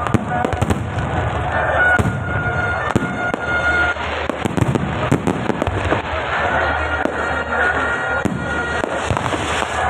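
Fireworks crackling and popping in rapid, irregular succession, with a high steady tone coming and going.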